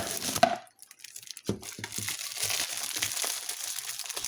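Plastic packaging crinkling as it is handled, with a sharp click about half a second in and a brief pause before the crinkling starts again.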